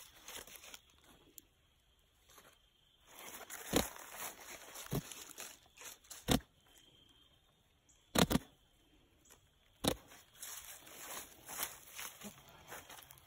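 Faint rustling in grass and leaves, broken by about five sharp knocks or clicks a second or two apart, as a buck goat moves about right at the microphone.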